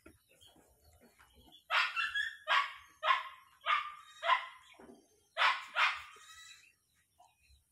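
A dog barking repeatedly: about eight short barks starting nearly two seconds in, with a brief pause midway.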